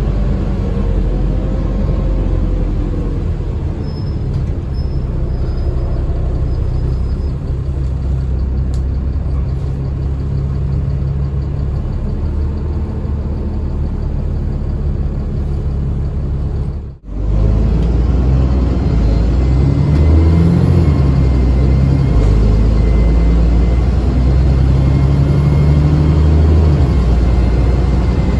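Alexander Dennis Enviro400 Trident double-decker bus's diesel engine running under way, a steady low drone heard on board. It cuts out abruptly for a moment about halfway, then comes back louder, its note shifting up and down a few times, with a faint high turbo whine over it.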